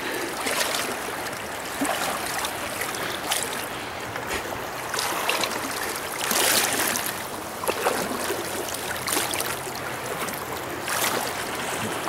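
Shallow river rapids rushing steadily, with repeated splashing as legs wade through the current, a splash every second or two.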